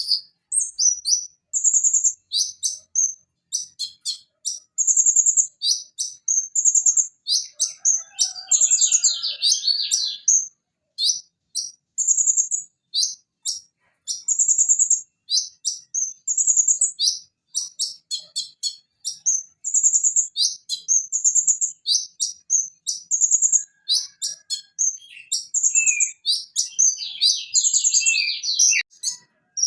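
Purple-throated sunbird (konin) singing continuously: strings of rapid, high-pitched chirps and fast trills, broken by short pauses.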